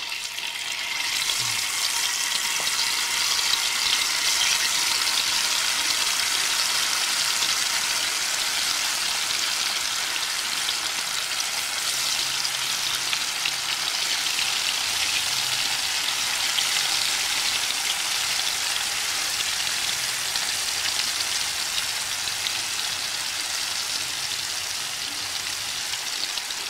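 Tofu pieces frying in hot oil: a loud, steady hissing sizzle that starts suddenly as the tofu goes into the oil and eases slightly toward the end.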